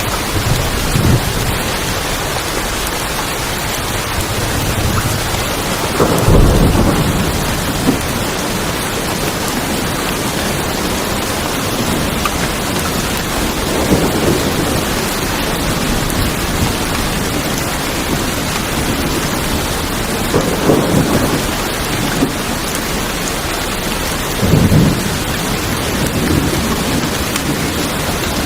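Steady heavy rain drumming on tin roofs, with a low rumble of thunder swelling up several times, the strongest about six seconds in and others near the middle and toward the end.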